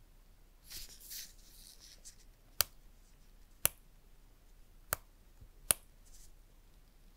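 Four sharp clicks from an iPhone 12's side controls pressed and flipped by a gloved fingertip, after a brief rustle of handling about a second in.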